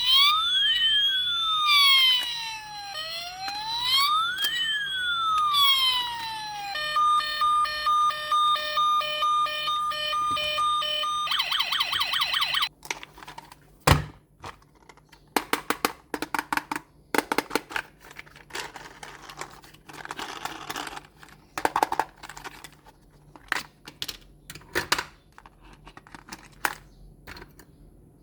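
Electronic siren from a toy RC police car's small speaker: a wail rising and falling for about six seconds, then a run of evenly pulsed beeps, then a brief fast warble that cuts off suddenly about halfway through. After it come scattered plastic clicks and rustling of the toy being handled, with one sharp click soon after the siren stops.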